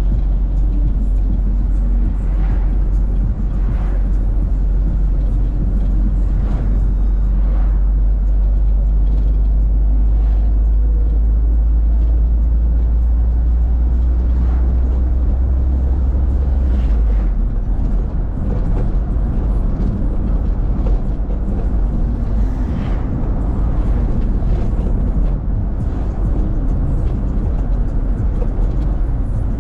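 Road vehicle on the move, heard from inside: a loud, steady low rumble of engine and road noise that eases about 17 seconds in.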